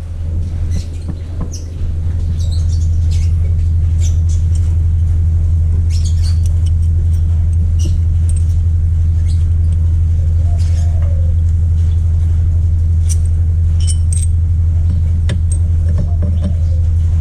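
A loud, steady low hum from a running motor or engine, swelling about two seconds in and then holding, with scattered light clicks and taps over it.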